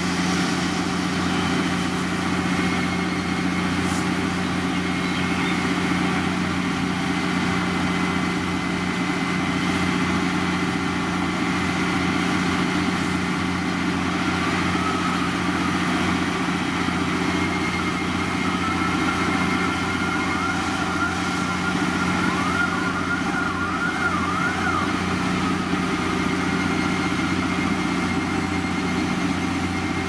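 Heavy construction-machinery diesel engine running steadily. Past the middle, a faint warbling tone rises and falls several times over it.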